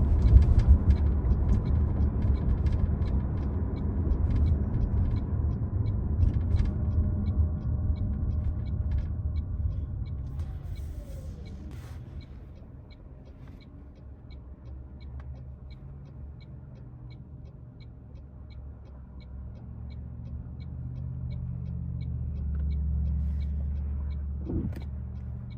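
Low cabin rumble of road and drivetrain noise inside a 2025 Toyota Prius on the move. It dies down about halfway through and swells again near the end. From the middle on there is a faint, even ticking a little under twice a second, and a short knock just before the end.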